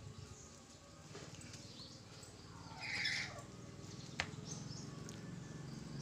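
A white cockatoo gives one short squawk about halfway through, followed about a second later by a single sharp tap.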